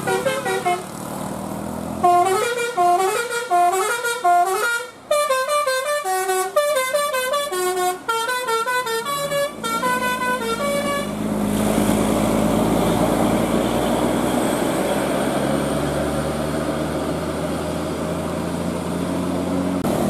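Bus 'telolet Basuri' musical horn playing a fast tune of short notes that change pitch several times a second. About eleven seconds in the tune stops and a steady vehicle engine and road rumble carries on.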